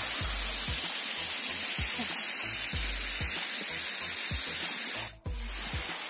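Steady hiss of water falling and splashing at a small, low-flow waterfall. It breaks off abruptly for a moment about five seconds in, then resumes.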